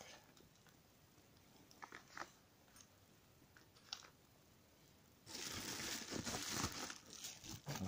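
A few light clicks of small metal fittings being set down on a table, then, from about five seconds in, loud crinkling and rustling of packaging being handled.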